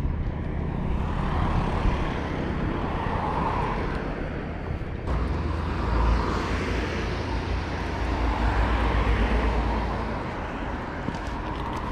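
Road traffic going by: a steady wash of car tyre and engine noise that swells and fades as vehicles pass, with low rumble underneath.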